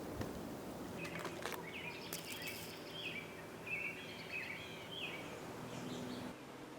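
A bird chirping in a run of short, falling calls, over outdoor background noise with a faint steady low hum.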